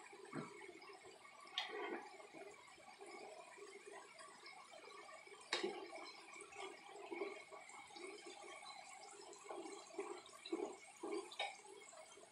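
Potato sticks deep-frying in a pan of hot oil: a faint, steady bubbling sizzle. A metal slotted spoon stirs them, giving a few light clicks against the pan.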